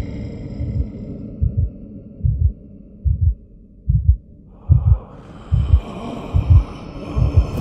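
Heartbeat sound effect: a slow, regular double thump a little under once a second over a low drone. About four and a half seconds in, a layer of high held tones swells in over it.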